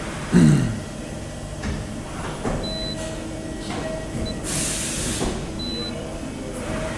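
Okuma Multus U3000 mill-turn CNC machine working through its probing cycle: a loud short falling whine just after the start, scattered clicks, and a burst of hiss about four and a half seconds in, over the machine's steady hum.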